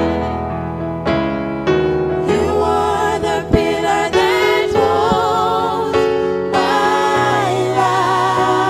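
Gospel song: a group of voices singing with vibrato over sustained keyboard chords.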